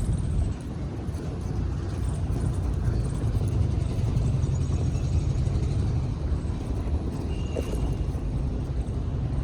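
Steady wind and road rumble from a moving Ola electric scooter. There is no ticking or rattling from the front suspension, which has just been replaced.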